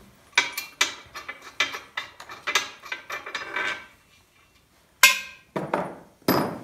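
Loose bolt, nut and washers clinking against the steel base of an engine hoist as they are taken off by hand: a quick run of light metallic clicks, then three louder ringing metal clanks about five seconds in.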